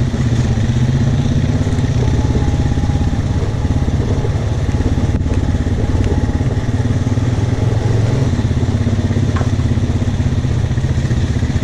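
ATV engine running steadily while being ridden, a low, even throb with no change in pace.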